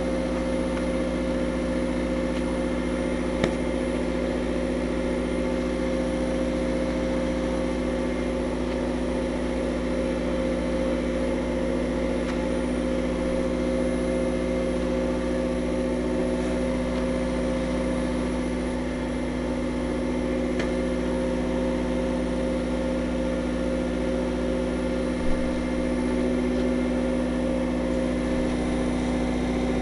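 Steady machinery hum with a constant low drone and unchanging pitch, broken only by two faint clicks, one early and one about 25 seconds in.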